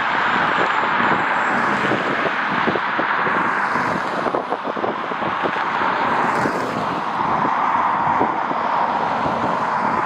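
Jet airliner engines running with a steady rushing roar, while strong gusts of wind buffet the microphone with rapid low thumps.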